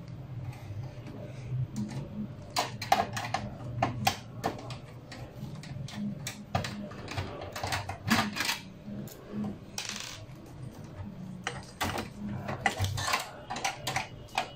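Irregular small clicks and clinks of a screwdriver, screws and plastic cable connectors being handled and unplugged inside an open desktop computer's steel case, with a short scrape about ten seconds in.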